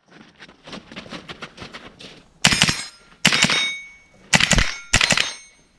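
Four loud shots from an AR-style semi-automatic rifle in the second half, each followed closely by the clang of a steel target being hit and a brief metallic ring. Before them comes a couple of seconds of quieter rapid clicking and clatter.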